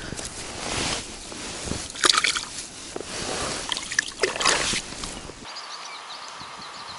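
Water sloshing and splashing, with two sharp splashes, as a freshly caught roach is put into the river at the bank. About five seconds in this gives way to a quiet open-air background with small birds chirping.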